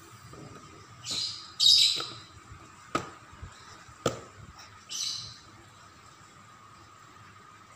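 A baby's hand slapping a plastic high-chair tray twice, about a second apart, with several short high chirps or squeaks in between, the loudest about two seconds in.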